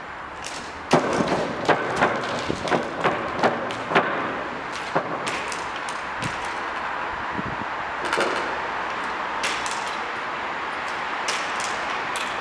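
Trials unicycle hopping on concrete: a run of sharp knocks, about three a second, starting about a second in, then rolling with occasional clicks.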